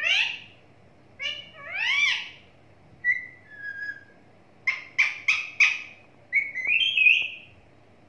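Rose-ringed parakeet calling in a string of separate calls: two arching squawks, a short thin whistle, four quick sharp calls in a row about five seconds in, and a longer wavering call near the end.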